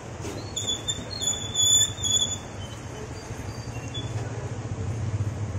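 Deep-frying at a pakora stall: oil sizzling in a kadhai over a steady low hum. A loud, high-pitched squeal, its source unclear, runs for about two seconds near the start.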